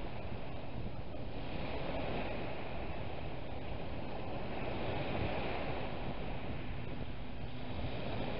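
Small waves breaking and washing up a shingle beach, the surf swelling gently a couple of times, with wind rumbling on the microphone.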